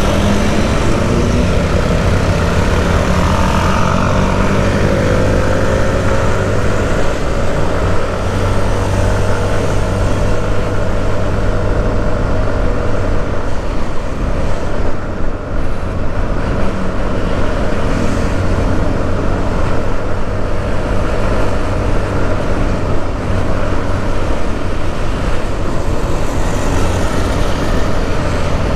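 A road vehicle's engine running with steady road noise while travelling. The engine's pitch shifts during the first few seconds, then holds steady.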